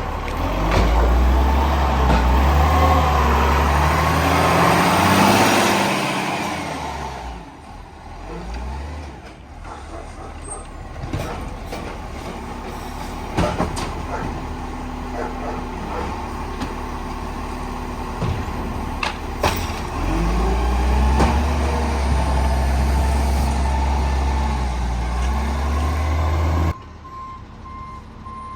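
Garbage truck engine revving up and back down twice under load, with sharp knocks and bangs in the quieter stretch between. Near the end the rumble cuts off suddenly and a reversing beeper sounds in short repeated beeps.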